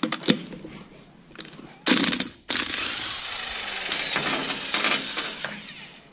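Cordless impact wrench loosening the lug nuts on a car's rear wheel: a short burst about two seconds in, then a longer run of about three seconds with a whine that falls in pitch as the nut spins off.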